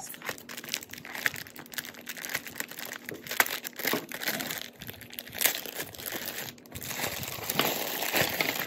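Clear plastic zip-top bag crinkling as it is unzipped and handled, with sharp little clicks of costume jewelry shifting inside. Near the end the bag is lifted and tipped, and the jewelry starts spilling out onto the cloth.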